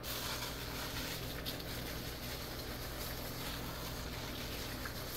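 Mister spraying a steady hiss of fine water onto dry leaf litter in a glass terrarium, wetting it down.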